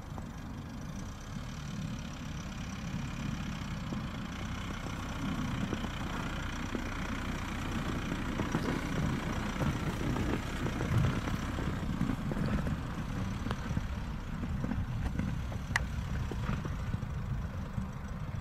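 Steady low rumble of a motor vehicle, growing slightly louder over the first few seconds, with a single sharp click near the end.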